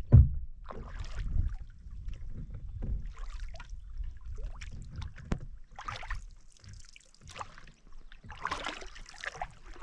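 Canoe paddle strokes on calm water: the blade dipping in and pulling through, with a splash and swish every couple of seconds. A single low thump at the very start.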